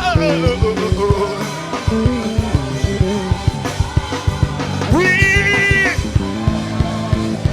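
Live worship band playing a steady beat, with drums and sustained bass notes. A sung note trails off at the start, and a voice slides up into a held note about five seconds in.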